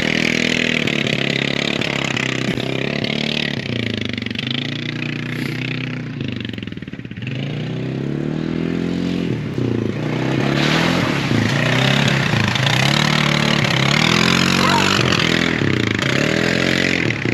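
Four-wheeler ATV engine revving up and falling back over and over as it is ridden hard through mud, over a steady hiss. It dips quieter for a moment about six to seven seconds in, then comes back louder.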